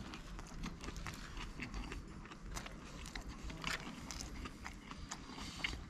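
A person chewing a mouthful of crispy breaded schnitzel sub close to the microphone: soft, scattered crunching and smacking clicks.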